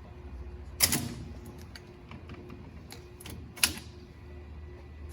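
Metal clanks and clicks as the wishbone arms are lifted off a rotisserie oven's rack spine: two sharp clanks, about a second in and near the end, with lighter ticks between. A steady low hum runs underneath.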